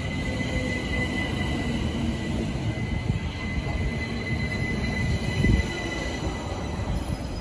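Gatwick Express Class 387 electric multiple unit moving slowly past the platform, its wheels rumbling with a steady high-pitched squeal that fades out about five or six seconds in. A low thud comes about five and a half seconds in.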